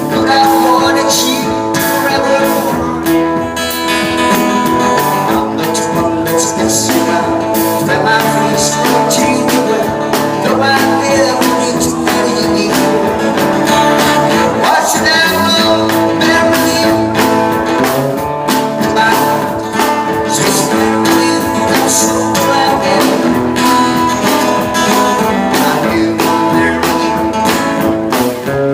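Country song with guitar over a steady beat.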